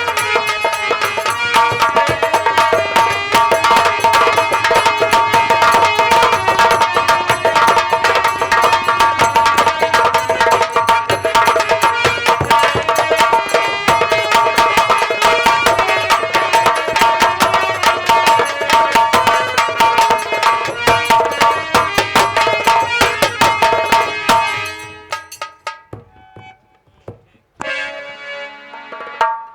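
Folk-theatre band music: fast, dense hand-drumming under a steady held melody note, which breaks off about three-quarters of the way through. A short burst of music follows near the end.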